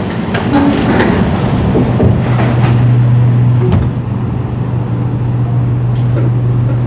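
Singapore MRT train's sliding passenger doors closing, shutting with a few knocks about two seconds in. A steady low hum from the train then comes up, with another knock shortly after.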